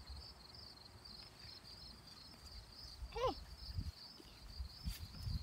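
Crickets chirping in a steady, evenly pulsing high trill. About three seconds in, a short falling voice cuts across it.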